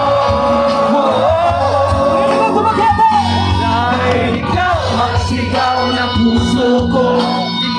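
Loud amplified pop music over a stage sound system: a singer's melody over steady bass and accompaniment, part of a Tagalog love song, with crowd shouts mixed in.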